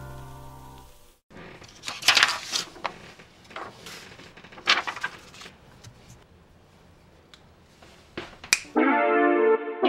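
A fading electric-piano chord, then sheets of paper rustling and being laid down on a wooden tabletop several times. Keyboard music starts near the end.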